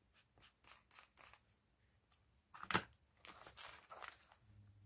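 Soft, faint taps of an ink pad being dabbed through a plastic stencil onto paper, with one sharper click just past the middle. Scratchy rubbing of fingers pressing over the stencil follows.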